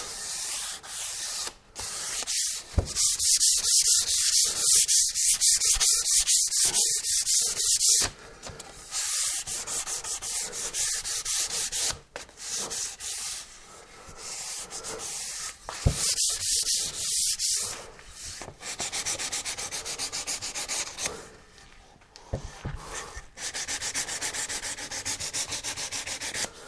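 220-grit sandpaper rubbed by hand over an oak board in runs of quick back-and-forth strokes, with short pauses between runs. This is the fine finishing pass that breaks the edges and smooths the surface before oiling.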